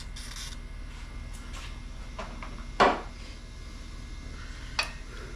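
A short hiss of PB Blaster penetrating oil sprayed from an aerosol can, then scattered clicks and one sharp clack about three seconds in as metal parts and tools are handled.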